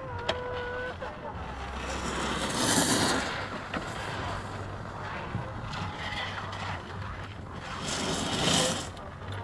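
Snowboard edges scraping and hissing across the hard-packed snow of a halfpipe, swelling twice, about two and a half seconds in and again near the end.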